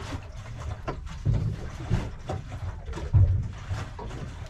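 Irregular low thuds and rumbles on the deck of a small boat at sea, with a few louder knocks.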